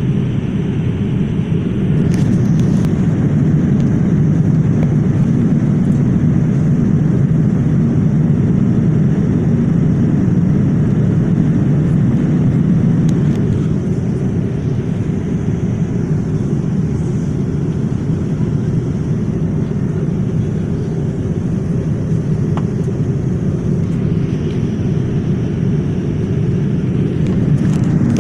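Boeing 787 airliner in flight: a steady, even low rumble of engines and rushing air.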